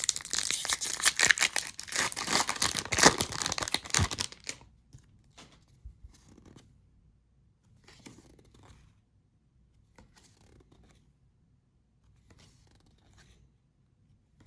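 Pokémon booster pack wrapper torn open, with dense crinkling and tearing for about four seconds. A few faint, brief rustles follow as the cards are handled.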